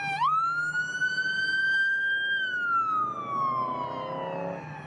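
Police car siren in wail mode. The pitch jumps up at the start, climbs slowly for about two seconds, then sinks over the next two and a half seconds, and starts to rise again at the very end.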